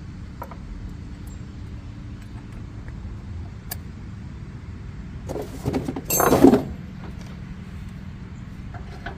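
Metal parts being worked while a solid tire wheel and its spacers are fitted onto the front caster fork of a Toro TimeCutter zero-turn mower: a few light clicks, then a loud, harsh scraping rattle lasting about a second and a half a little past the middle, over a steady low hum.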